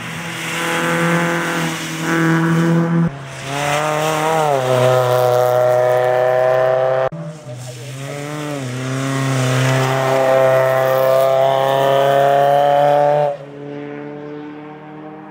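Rally car engine running hard at high revs, its pitch dipping and climbing again with the gear changes, in a few abruptly cut passages. It drops away suddenly near the end to a quieter, steady engine note.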